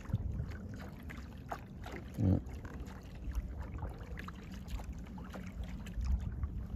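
Water lapping and trickling against the hull of a Hobie Passport 12.0 kayak under way, with many small irregular splashes over a steady low rumble.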